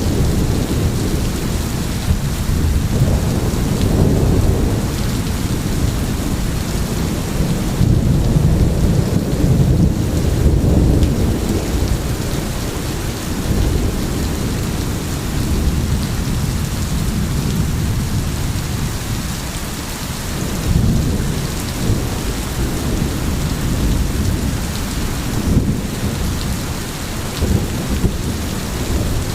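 Heavy rain falling steadily, with a continuous low rumble that swells and eases throughout.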